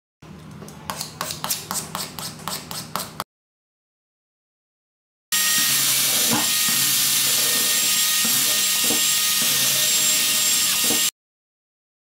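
A rapid series of scraping strokes, about four a second, for a few seconds. After a pause comes a small cordless drill running at a steady high whine for about six seconds, with its bit pressed onto a tempered glass screen protector and knocking against it now and then.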